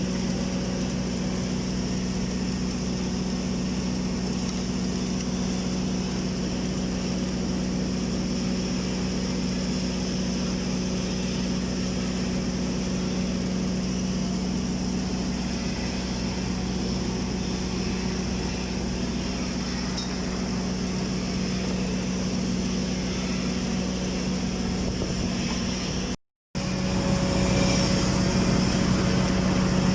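Steady machine hum of an automatic girth welding (AGW) submerged-arc welding rig running along a storage tank's horizontal shell seam. It cuts out for a moment about 26 seconds in and comes back slightly louder.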